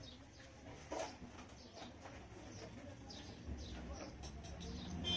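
Tailor's scissors snipping and trimming cotton pocket lining, with the cloth rustling as it is handled; a few short snips come through.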